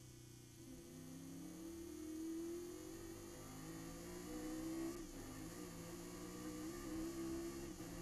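Chevrolet Nova race car's engine revving up under hard acceleration, its pitch climbing steadily, with a brief drop about five seconds in and again near the end as it shifts up a gear.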